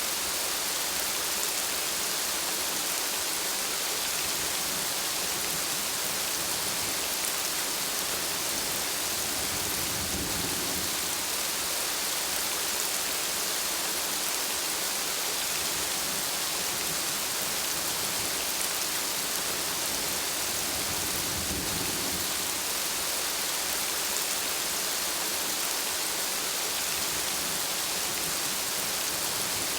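Steady rain falling as an even hiss throughout. A low rumble swells briefly about ten seconds in, and again about twenty-one seconds in.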